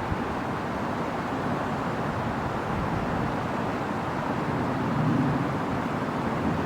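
Steady roar of highway traffic, swelling slightly about five seconds in.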